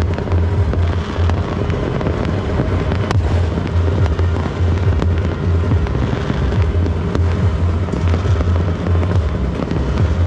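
Fireworks and firecrackers going off across a town: a continuous din of crackling with sharp bangs scattered through it, over music with a heavy pulsing bass.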